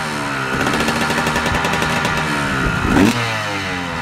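Two-stroke motocross bike running on the stand-still with its rider aboard. The revs sink slowly, then a sharp throttle blip comes about three seconds in and the revs fall away again.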